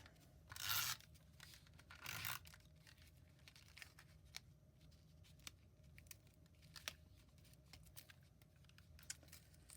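Paper craft materials being handled: two short rustles about half a second and two seconds in, then only faint scattered taps and ticks.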